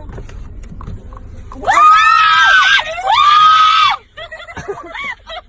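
A person screams twice, two long high-pitched screams of about a second each starting about two seconds in, then gives short broken cries. The screams come as a zebra at the car window gets hold of their hand.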